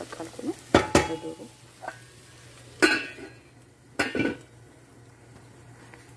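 Kitchenware clattering: four sharp knocks, two close together about a second in, another near three seconds and a last one at four seconds.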